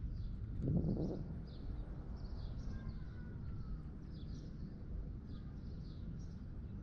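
Small birds chirping over and over in short calls, over a steady low rumble of outdoor background noise, with a brief louder low rush about a second in.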